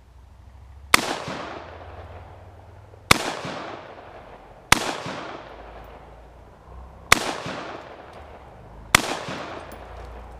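Five single rifle shots from an AR-15 with a 20-inch barrel firing 5.56 rounds, spaced about one and a half to two and a half seconds apart, each trailing off in a long echo.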